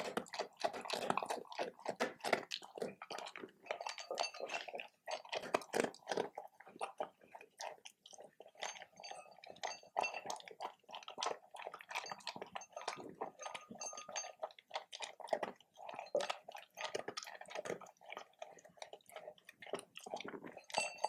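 A dog eating, chewing and crunching its food with quick, irregular bites and smacks.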